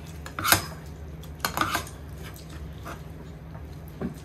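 Cutlery and dishes clinking while people eat. There is a sharp clink about half a second in, a few more about a second later, and one near the end, over a steady low hum.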